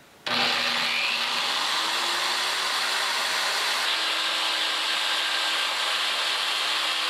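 Corded electric drill, run through a dimmer-switch speed control as the headstock of a homemade mini lathe, starts suddenly and runs steadily. From about four seconds in, sandpaper is pressed against the spinning wine cork, adding a brighter sanding hiss.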